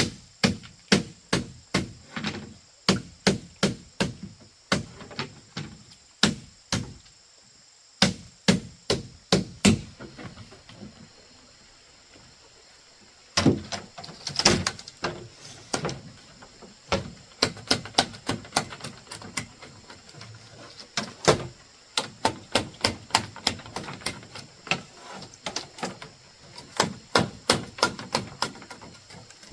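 A hand tool striking bamboo in repeated sharp blows, chopping or hammering at about two strokes a second, in runs broken by short pauses.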